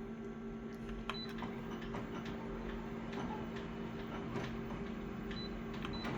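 Office photocopier humming steadily, with scattered light clicks and three short high beeps like control-panel key presses, about a second in and twice near the end.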